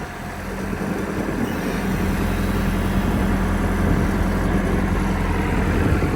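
Caterpillar 420E backhoe loader's diesel engine running steadily, getting louder over the first couple of seconds and then holding even.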